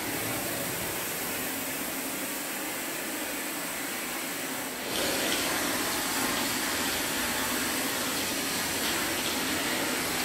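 Canister vacuum cleaner running with a steady hiss, a little louder from about halfway through.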